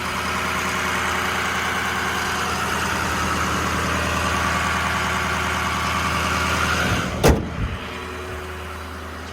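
The Ford F550's 6.0 diesel engine idling steadily, with one loud slam about seven seconds in, like a door or compartment lid shutting. After the slam the engine sound is quieter.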